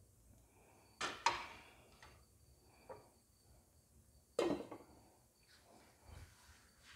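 Kitchenware knocking: two sharp knocks about three and a half seconds apart, each with a short ringing tail, and a fainter knock between them.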